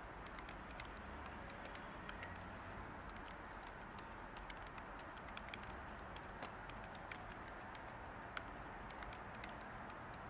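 Light typing on a computer keyboard, scattered unhurried keystrokes, over a steady white-noise hiss.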